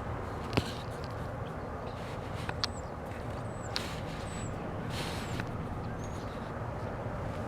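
Steady low rumble of a BNSF freight train carrying containers, with a few sharp clicks. Over it come five or six short, high chirps that each dip at the end, from a bird.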